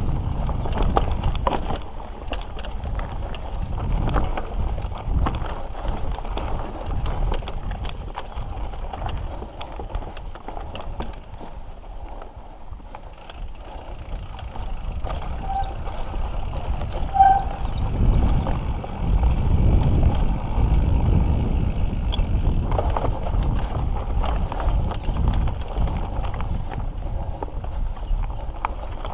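Mountain bike riding on a dirt trail: tyre rumble with many rattles and clatters as the bike goes over bumps, heaviest about a fifth of the way in and again past the middle.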